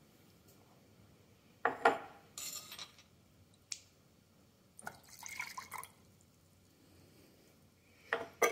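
Water rinsed from a stone mortar poured into a glass jar of ground azurite powder, gurgling for about a second, between a few knocks of the mortar and glass, one about two seconds in and one near the end. It is the rinse that washes the last ground pigment out of the mortar into the jar.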